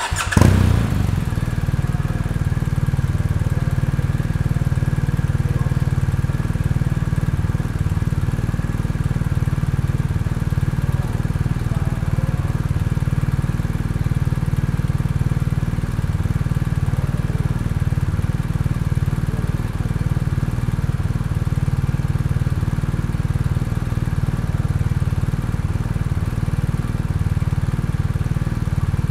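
BMW R 1250 RT's 1254 cc boxer twin starting and settling straight into a steady idle, with a brief surge in level just after it catches.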